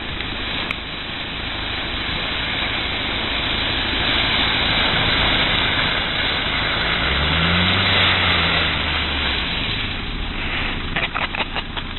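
Land Rover 90 driving through a deep muddy puddle, its engine rising in pitch about seven seconds in as it accelerates, over a steady wash of splashing water. Near the end a spatter of knocks as the spray thrown up by the wheels hits the camera.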